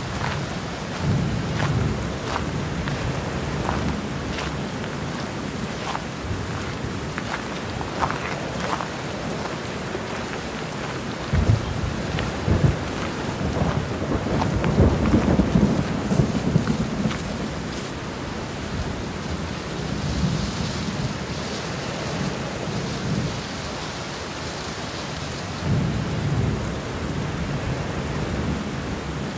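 Steady rain falling, with several low rolls of thunder; the longest and loudest rumble comes about halfway through.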